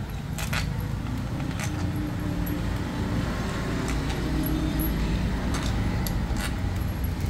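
Scattered light metallic clicks of a hand tool working bolts on a motorcycle's footrest and clutch-side bracket, over a steady low rumble of vehicle traffic.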